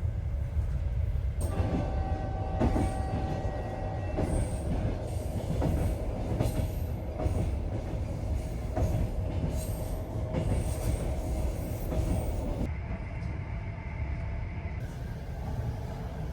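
Train running on rails: a heavy low rumble with irregular wheel clicks and a steady high wheel squeal, which stops about three-quarters of the way through while the rumble continues.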